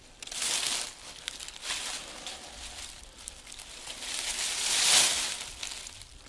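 Dry fallen leaves crunching and rustling in several bursts, under a hunter's footsteps and as a dead buck is hauled upright through the leaf litter by its antlers; the longest, loudest rustle comes about four to five seconds in.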